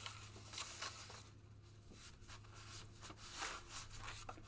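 Sheets of paper being handled and slid into place: soft, irregular rustling and brushing strokes.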